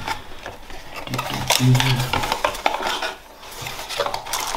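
A small cardboard box being opened by hand: flaps folded back and the inside rummaged, giving a run of rustling, scraping and light clicks.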